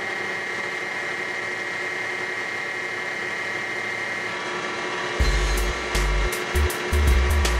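Wood lathe running steadily with a whine as a cloth is held against the spinning wood to finish it. From about five seconds in, a run of low thumps and sharp clicks.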